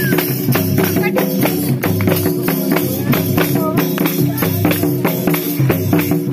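Santhali dance music with a quick steady beat and tambourine jingles.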